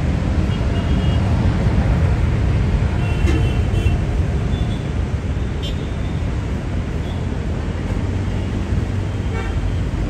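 Boeing 787-9 jet engines giving a loud, steady low rumble, with short high horn toots from road traffic about a second in and again between three and four seconds in.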